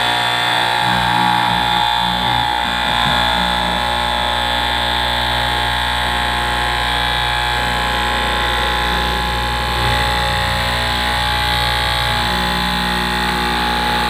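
Electric straight-knife cloth cutting machine running with a steady hum while it cuts through a tall stack of fabric layers.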